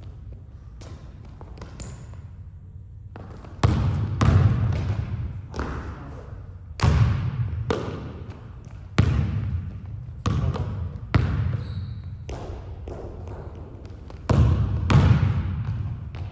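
Basketball dribbled on a hardwood gym floor: irregular bounces about a second apart, each ringing in the hall. The first three seconds are quieter and sparser, and the bounces grow louder after that.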